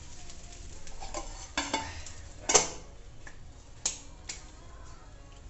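Metal lid and frying pan clattering: a silver pot lid is set down onto the pan of frying rice with one loud clank about two and a half seconds in, among a few lighter clinks.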